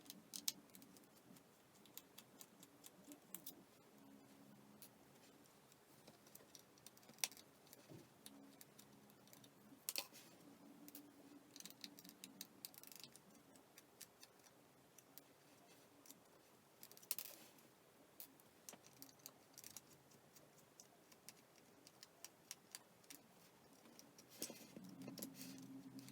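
Faint, irregular clicks and ticks of a small screwdriver working tiny screws out of a flip phone's plastic back housing, with a few sharper clicks among them.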